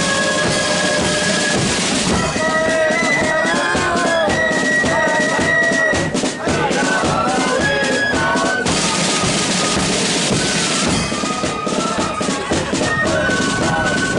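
Marching flute band playing: flutes carry a high tune over snare drums and a bass drum beating in time.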